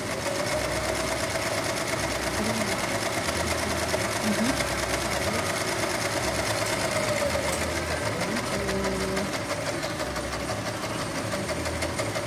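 Serger (overlock sewing machine) running steadily at speed as fabric is fed through it, an even hum with a fast, fine stitching rattle.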